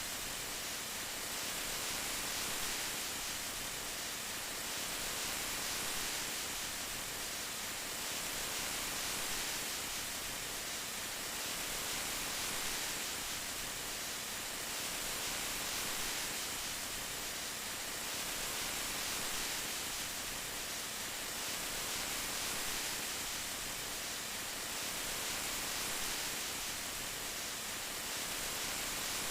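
Steady rain hiss, even and unbroken, swelling gently about every three seconds.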